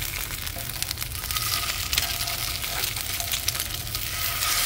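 Eggs frying in oil in a hot carbon steel pan, a continuous sizzle with fine crackles while they are flipped with a metal spatula, over a steady low rumble.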